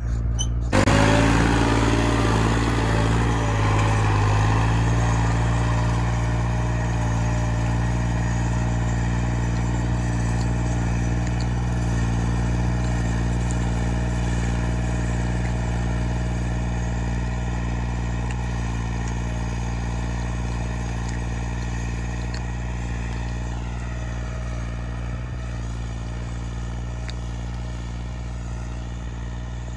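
New Holland 3630 tractor's three-cylinder diesel engine running steadily under load while pulling a tiller through the soil. It starts loud and fades slowly as the tractor draws away.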